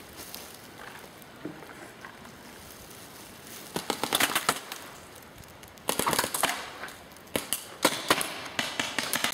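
Paintball markers firing in rapid bursts of sharp pops: one volley about four seconds in, another about six seconds in, and a longer run of shots near the end.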